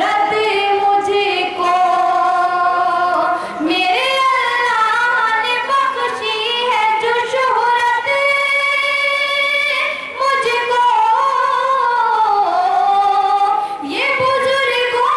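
A woman sings an Urdu ghazal into a microphone in the melodic tarannum style. She holds long notes, one of them for about two seconds near the middle, and pauses briefly for breath between phrases.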